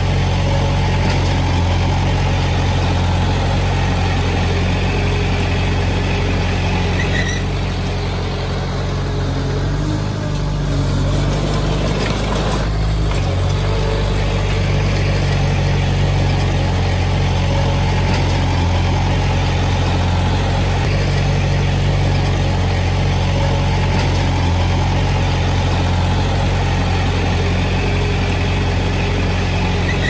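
Small crawler bulldozer's diesel engine running steadily while it pushes soil, its note shifting briefly about ten seconds in.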